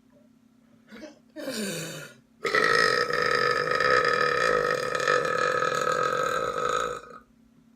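A person belching: a short burp that drops in pitch, then after a brief gap a long, steady belch lasting about four and a half seconds.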